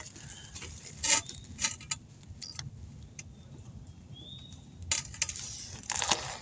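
Scattered metallic clicks and clinks of pliers and hand tools working at a screw stuck through the tire tread, trying to get a grip on it.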